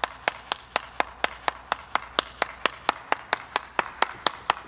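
One person clapping hands in a steady, even rhythm, about four claps a second.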